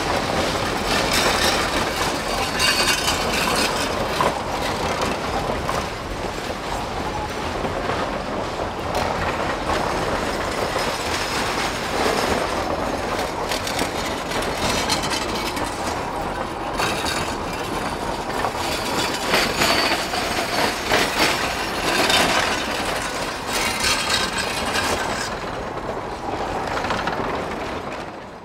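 Narrow-gauge steel-wheeled passenger coaches rolling past close by, wheels clicking over rail joints with intermittent wheel squeal on the curve. The sound fades near the end as the last car goes by.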